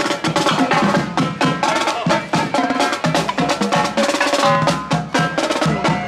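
Music with a busy percussion beat: rapid drum strokes over held melodic notes.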